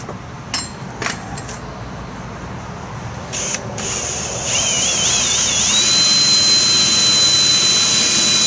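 Power drill boring into the van's sheet-metal body, starting about halfway through with a wavering high squeal that settles into a steady, loud, high-pitched whine as the bit cuts the steel. Two sharp clicks come before it.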